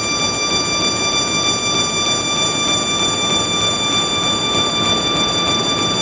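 CO2 laser marking machine running as it marks an acrylic sheet: a steady high-pitched whine with a ladder of overtones over a steady rushing machine noise.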